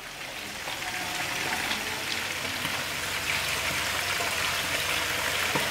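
Tilapia frying in a pan of plenty of hot oil over a low flame: a steady sizzle that grows slightly louder over the first second and then holds.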